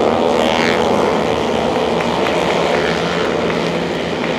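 Several single-cylinder flat track race motorcycles running hard at high revs, their engine notes overlapping. One engine note rises and falls about half a second in as a bike goes by.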